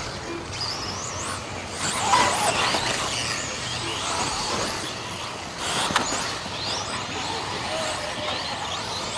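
Electric motors of 1/10-scale off-road RC racing cars whining, rising and falling in pitch with the throttle as the cars race, with a sharp knock about six seconds in.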